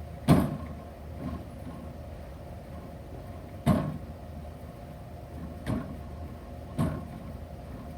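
Hand tools knocking on the screws of a linkage-arm puller as they are turned a little at a time, drawing the linkage arm off the elliptical's axle. There are four sharp knocks, a few seconds apart, over a steady low hum.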